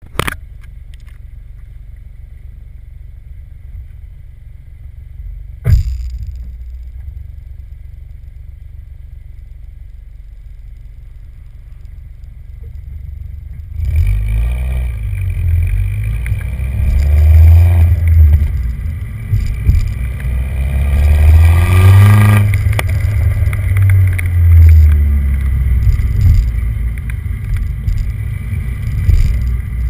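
A 2009 MINI John Cooper Works' turbocharged 1.6-litre four-cylinder exhaust, heard from the rear bumper: idling low at first, with one sharp thump about six seconds in. From about halfway the car pulls away and gets much louder, the revs climbing and dropping back twice as it accelerates through the gears.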